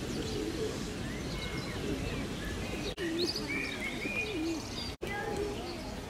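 Feral pigeons cooing in low, wavering calls, with small birds chirping higher over steady outdoor background noise. The sound cuts out briefly about three and five seconds in.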